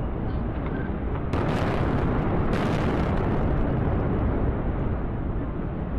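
Demolition collapse of concrete power-station cooling towers: a deep, continuous rumble, with two sudden sharper swells of crackle about a second and a half in and again a second later.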